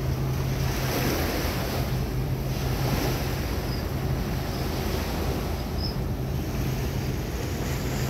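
Steady low engine hum from a moored workboat, with waves lapping and wind buffeting the microphone.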